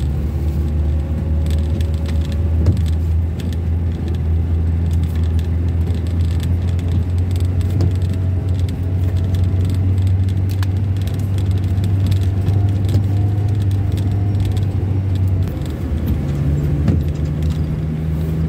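A vehicle's engine and road noise heard from inside the cab while driving, a steady low drone. About fifteen seconds in, the low drone drops away and a slightly higher engine note takes over.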